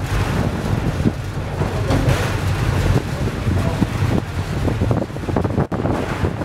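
Funicular car running downhill: a steady low rumble with many small rattles and knocks from the car and its wheels on the track, and wind buffeting the microphone.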